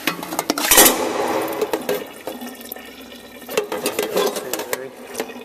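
Water running and splashing out at the bottom of a milk-tank wash unit as its level jug siphons empty after the wash, with a sharp knock about a second in.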